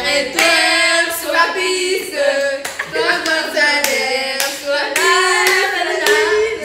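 Several young voices singing a song together, with hand claps.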